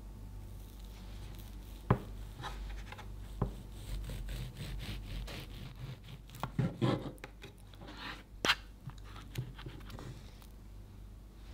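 Serrated bread knife sawing through the edge of a layered sponge cake with whipped cream and strawberries: a run of soft rasping strokes, with a few sharp clicks, the loudest about two seconds and eight and a half seconds in. A low steady hum runs underneath.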